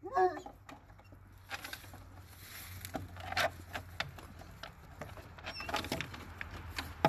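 A bloodhound's short howl, falling in pitch and cut off within about half a second, then faint scattered clicks and rustles.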